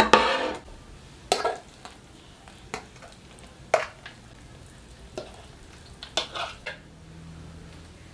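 A cooking utensil clinking and scraping against a pan while noodles are stirred, with a faint steady sizzle underneath. The strikes come irregularly, about half a dozen, with a quick cluster about six seconds in.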